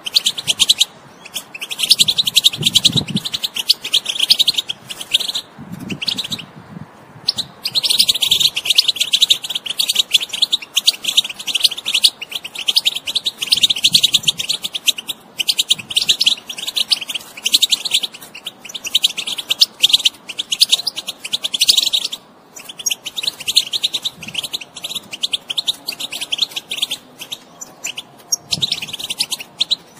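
European goldfinch singing: long runs of rapid, high twittering chatter, broken by short pauses every few seconds.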